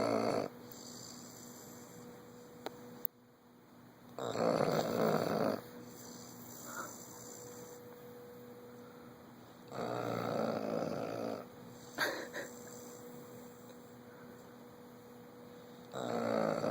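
A bloodhound snoring in deep sleep: a loud snore every six seconds or so, each lasting a second or more, with a faint steady hum between them.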